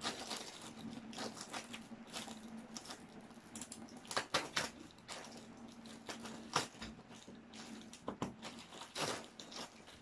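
Parcel packaging being opened by hand: irregular rustling, crinkling and tearing, with a few sharper clicks and taps.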